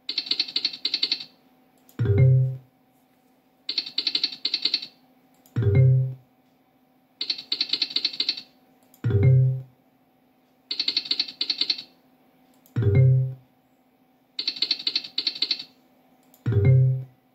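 Funky Chicken online slot machine game sounds, repeating five times about every three and a half seconds: a rattling run of fast clicks lasting about a second as the reels spin, then a short, loud low sound. A faint steady hum runs underneath.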